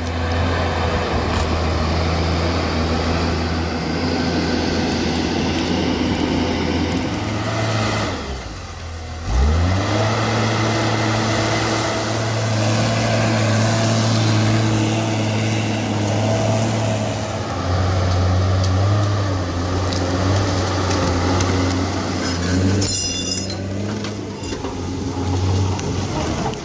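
Heavy forestry machine's engine running steadily. About eight seconds in, the engine note drops away and then climbs back up, and it runs steady again.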